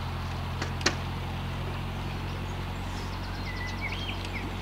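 Narrowboat's diesel engine running at a low, steady hum as the boat motors slowly along the canal. A single sharp click comes about a second in, and a bird chirps a few times near the end.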